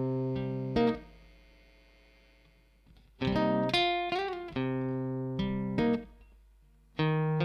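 Acoustic guitar and electric bass playing the opening chords of a slow song. A chord rings out and fades away for about two seconds, then the two come back in with held chords, one note wavering in pitch, and a fresh chord near the end.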